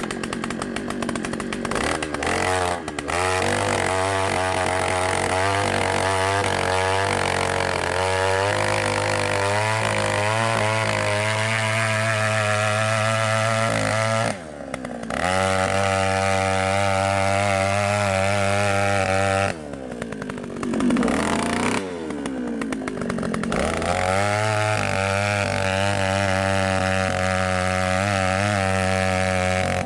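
Engine of a large motor-driven drill running steadily with a wavering pitch. Its speed drops briefly about halfway through, dips again for a couple of seconds about two-thirds through, and then picks back up.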